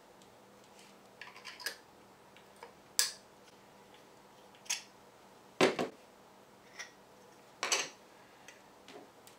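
3D-printed plastic blaster parts clicking and knocking as they are handled and pulled apart by hand: scattered sharp clicks, the loudest about three and about six seconds in.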